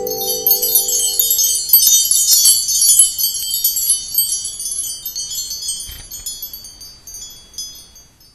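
A shimmering cascade of high, tinkling wind chimes that starts at once, then thins out and fades away over about eight seconds. A low mallet-struck note rings on underneath and dies away in the first two seconds.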